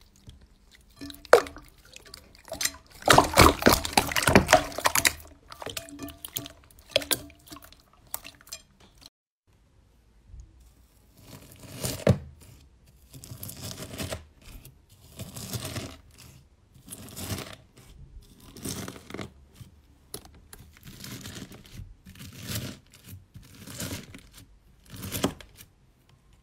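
Clear, watery slime squished and pressed by hand in a bowl, wet squelching and popping. After a short pause, gold-foil-covered slime sliced again and again with a knife, a crinkly crunch of foil with each cut, about one a second.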